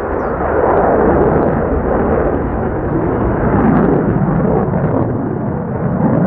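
Loud, steady jet engine noise from a stealth fighter jet flying a vertical climb.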